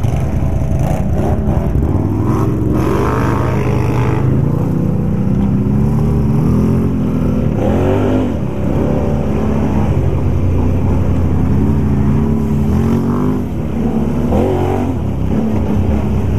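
Can-Am ATV engine under throttle on a dirt trail, its revs climbing and falling as it accelerates, with brief drops about eight and thirteen seconds in where the throttle eases off.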